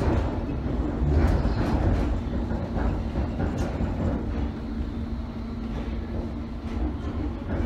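London Underground S Stock train running through a tunnel, heard from inside the carriage: a steady low rumble of wheels on rail with a steady hum over it and a few sharp clicks from the track. It eases off a little about halfway through.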